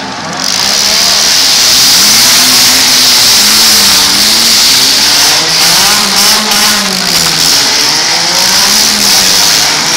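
Engines of compact demolition derby cars running loud, revving up and down every second or so over a steady hiss.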